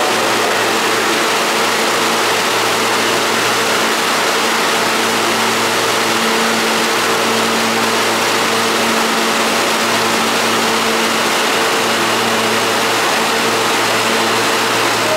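R160 subway car standing at a station platform, its onboard equipment giving a loud, steady hum over a wide station rush of noise.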